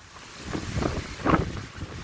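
Wind buffeting the phone's microphone in uneven gusts, a low rumble that swells to its loudest a little past the middle.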